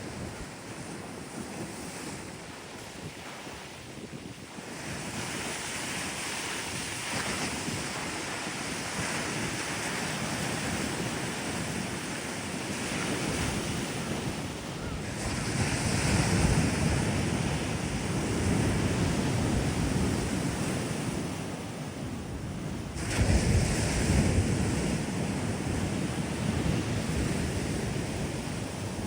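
Sea waves breaking and washing up on a sandy beach. The surf swells and ebbs, with a louder break about halfway through and the loudest one about three-quarters of the way in.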